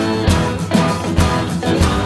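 Background music with a steady beat about twice a second.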